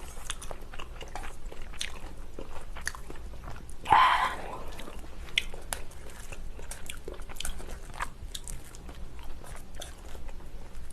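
Close-miked eating sounds: a person chewing and crunching a mouthful of ramen and cabbage kimchi, with many small wet clicks and a louder burst about four seconds in.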